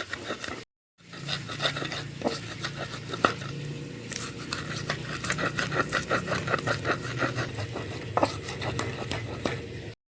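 Pestle grinding spice paste in a cobek mortar (ulekan and cobek): quick repeated scraping and knocking strokes, several a second, over a low steady hum, with a brief break just under a second in.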